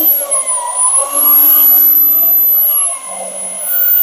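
Corded electric drill in a drill stand running as it bores through PVC pipe. Its motor whine drops in pitch under load and then recovers, eases off briefly about three seconds in, and speeds back up.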